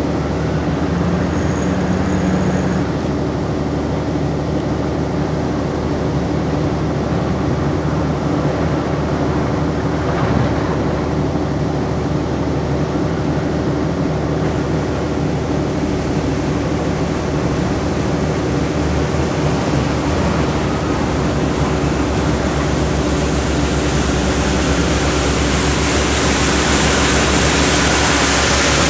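Large Volvo wheel loader's diesel engine running steadily with a constant droning tone. It grows louder and hissier over the last few seconds.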